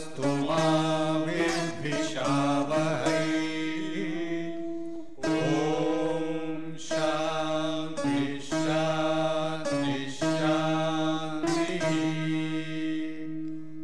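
Lecture-series intro music: a chanted vocal melody sung in several phrases over a steady low drone. The voice drops out near the end, leaving the drone fading.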